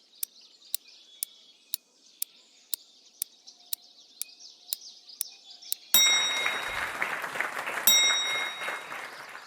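Game sound effects: a timer ticking about twice a second, then about six seconds in a bright ding with a burst of applause, and a second ding about two seconds later as the applause fades.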